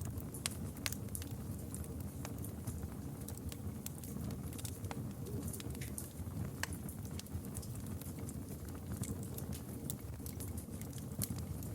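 Campfire burning steadily, with a low rumble and frequent sharp, irregular crackles and pops from the burning wood.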